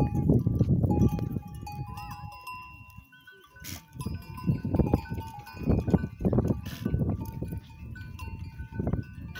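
A large goat herd on the move, many bells ringing and clanking at several different pitches, with occasional bleats. It goes briefly quieter about three seconds in.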